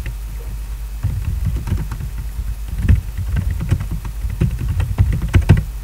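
Typing on a computer keyboard: a run of irregular key clicks starting about a second in, over a steady low hum.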